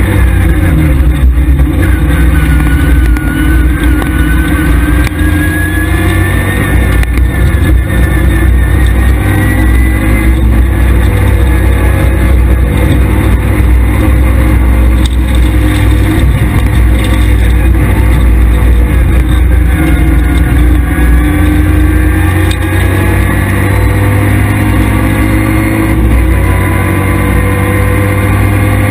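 Škoda Felicia rally car's engine, heard from inside the cabin and driven hard along a stage: a loud, continuous engine note that climbs and falls repeatedly as the driver accelerates, shifts and lifts, over a heavy steady rumble of road and cabin noise.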